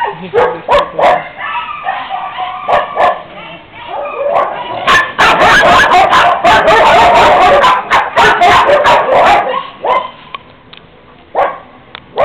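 Several dogs barking and yipping in kennel pens. Scattered barks at first, then a dense run of loud, overlapping barking from about five seconds in until near ten seconds, then a few single barks.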